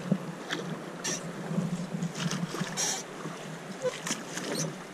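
Drift boat being rowed on a fast river: a steady rush of moving water, broken by scattered short splashes and knocks from the oars.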